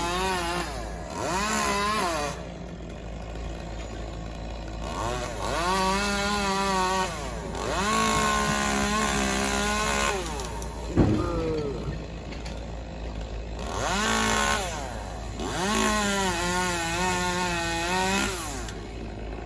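Chainsaw revving in about five bursts, cutting wood up in a tree, dropping back to idle between cuts, with a single sharp snap about halfway through.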